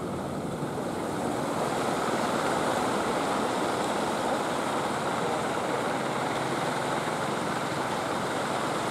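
Surf washing against the concrete breakwater blocks, a steady rushing that grows a little louder about a second in, with the motor of a passing outrigger fishing boat running under it.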